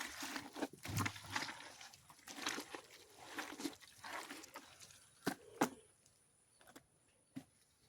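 Wet poultry mash being mixed by hand with added water: a busy run of wet squelches, slaps and knocks, with two sharp knocks about five seconds in, after which it goes much quieter.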